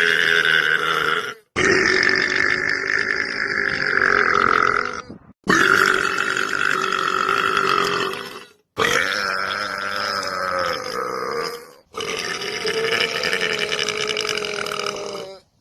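A man's long, drawn-out belches, one after another: the end of one, then four more of about three seconds each, separated by short silent breaks. Each belch holds a fairly steady pitch.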